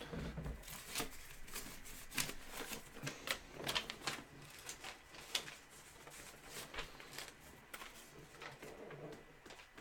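Faint, irregular light clicks and taps, bunched more thickly in the first half.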